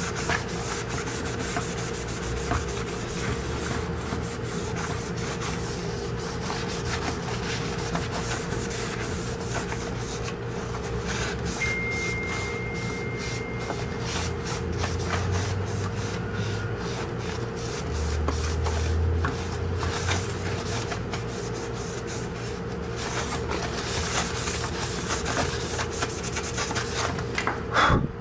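Paper towel, dampened with Windex, rubbing and wiping across the face of a Volvo semi-truck instrument cluster: a continuous scratchy rubbing with quick back-and-forth strokes.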